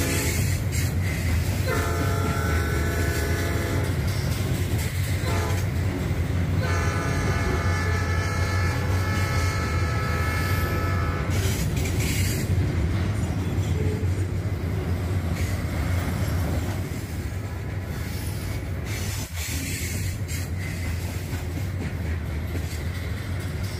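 Diesel freight locomotive's air horn sounding a chord in two blasts, a shorter one about two seconds in and a long one of about five seconds from about seven seconds in, over the steady low rumble of the passing train, which eases a little near the end.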